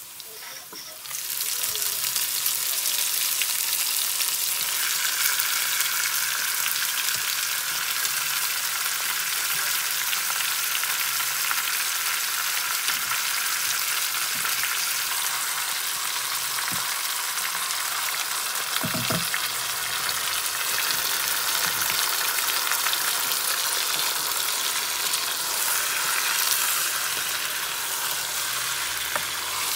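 Marinated chicken pieces sizzling in hot oil with fried onions and whole spices, stirred with a wooden spoon. The sizzle jumps up about a second in as the chicken goes into the pot and then holds steady; a single knock sounds past the middle.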